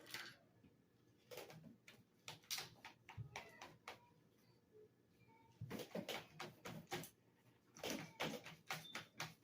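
Faint, irregular clicks, taps and scrapes of plastic vacuum-cleaner parts being handled and probed to dig out a clog lodged deep inside. They come in two busier clusters, one in the middle and one near the end.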